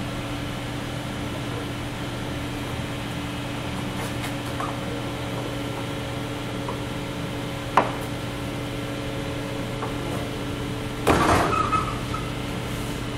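Steady mechanical room hum, with occasional knocks and handling noise as raw tuna loins are cut and moved on a plastic cutting board. There is a single sharp knock about eight seconds in, and a louder burst of several knocks about eleven seconds in.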